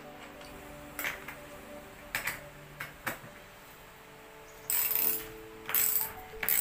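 Chrome metal chair legs being handled and fitted to a wooden cross frame: a few sharp clicks, then two louder metallic clatters near the end.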